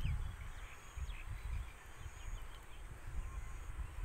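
Wind buffeting the microphone in gusts, with a few short bird chirps near the start and about a second in.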